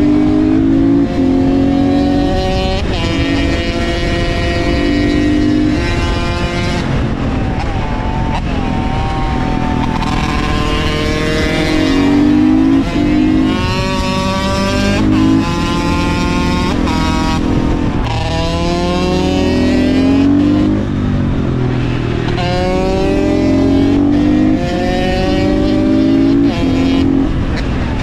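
KTM supermoto's single-cylinder engine under hard acceleration, its pitch climbing through each gear and dropping back at the shifts, then pulling again several times over.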